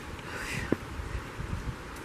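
Footsteps on a trail and handling of a handheld camera, heard as scattered low thumps over a steady outdoor hiss. A brief faint high sound comes about a quarter of the way in.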